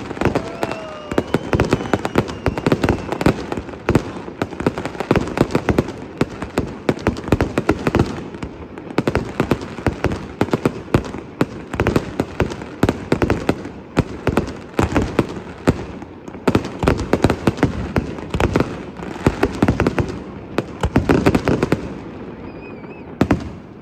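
Fireworks display: a dense, rapid run of bangs and crackles from aerial shells, which stops about two seconds before the end, followed by one last bang.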